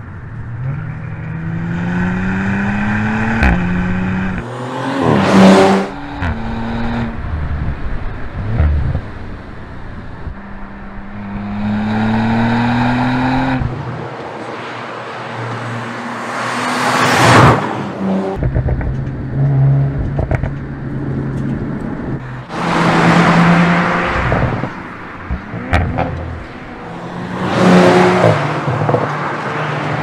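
Audi RS4 Avant's twin-turbo V6 accelerating hard: its pitch climbs steadily twice in long pulls, each ending in a sudden drop. The car also sweeps past four times, each pass loud and brief with a rush of noise.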